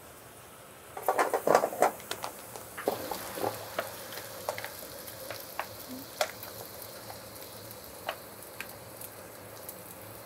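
Food sizzling in a frying pan as steamed rice is spooned into it from a foil tray. About a second in comes a flurry of metal spoon clatters and scrapes, then scattered taps over a steady sizzle.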